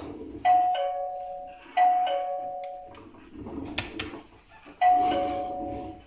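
Two-note ding-dong doorbell chime from a smart-home base station, rung three times as the Xiaomi Mi Smart Wireless Switch is pressed, each time a higher note falling to a lower one. It is the sign that the rebuilt switch's signal reaches the base station: the button works.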